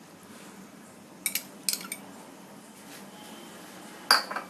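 A spoon clinking against a bowl a few times, with a louder, sharper clink that rings briefly near the end.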